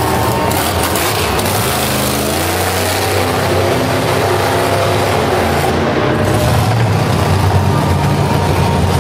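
Monster truck engine running loud, revving up and down as the truck drives and turns on the dirt.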